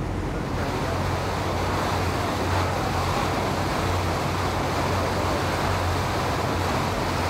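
Tour boat under way: its engine runs with a steady low drone beneath a constant rushing noise of water and wind.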